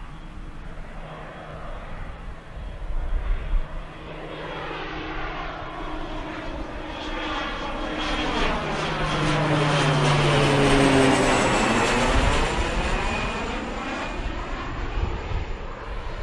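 PZL-130 Orlik turboprop trainer flying low overhead on its landing approach. The engine and propeller sound grows louder, is loudest about eleven seconds in, and drops in pitch as the plane passes and moves away. A few brief low rumbles come about three seconds in.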